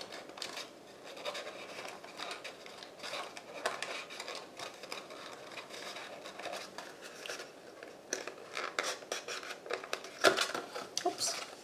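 Cardstock rustling, scraping and clicking under the fingers as a small folded paper box is pressed together and its tuck flap pushed in, with a sharper tap about ten seconds in.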